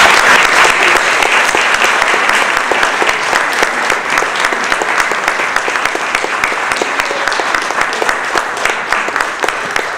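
Audience applauding, starting loud and slowly fading.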